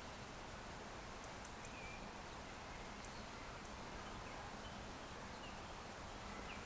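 Faint steady background hiss, with a few short, faint chirps scattered through it.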